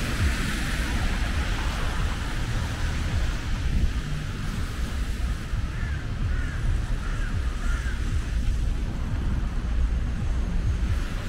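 City traffic on a wet street: a steady low rumble of car engines with tyre hiss from passing cars, strongest at the start. About six seconds in, a bird gives four short calls in quick succession.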